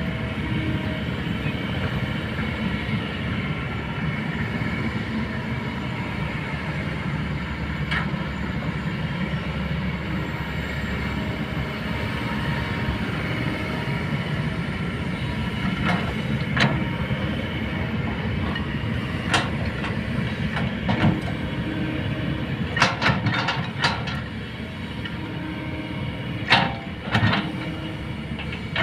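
Kobelco hydraulic excavator's diesel engine running steadily under work. Sharp metallic knocks break in from about halfway, several close together near the end.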